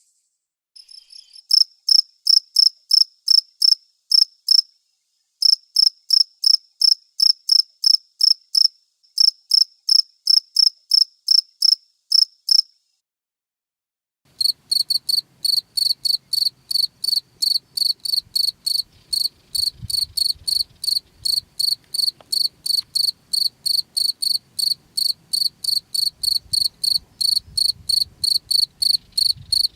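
Crickets chirping: short high-pitched chirps at about three a second, first in three runs with brief breaks between them. After a short silence about halfway through, a second cricket takes over, chirping steadily at a slightly lower pitch over a faint low background rumble.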